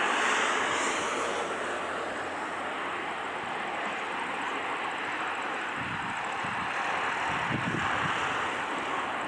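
Airbus A320's twin jet engines running at low thrust as the airliner taxis and turns on the runway after landing: a steady rushing noise, loudest at the start, settling about two seconds in and swelling slightly near the end.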